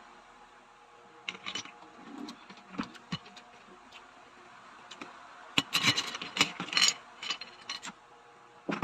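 Clicking and clattering of shells and utensils during eating, with a few scattered clicks and then a busy burst of clatter a little past halfway.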